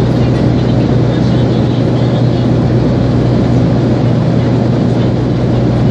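Steady drone of an airliner in flight heard inside the passenger cabin: an even rushing noise of engines and airflow over a constant low hum.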